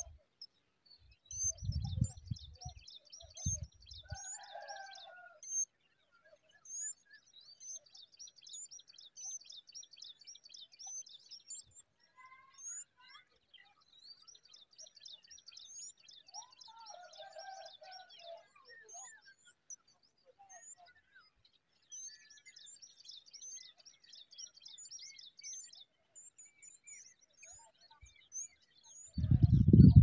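Small songbirds calling: fast high-pitched trills repeated in runs several seconds long, with short higher chirps and a few lower calls mixed in. A low rumble of noise comes in briefly near the start and again at the very end.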